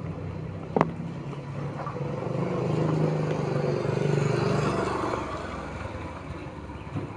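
A motor vehicle's engine passing close by, swelling to its loudest three to five seconds in and then fading. A single sharp click sounds about a second in.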